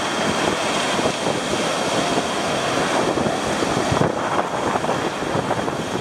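Surf breaking and washing up the beach as a loud, steady rush, with wind buffeting the microphone.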